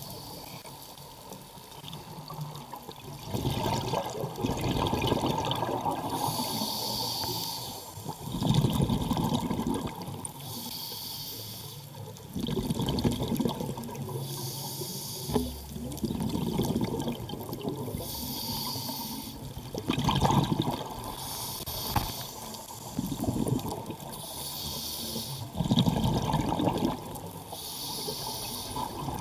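Scuba diver breathing through a regulator underwater, slow and even. Each inhale is a high hiss, and each exhale is a louder rush of bubbles, about one breath every four seconds.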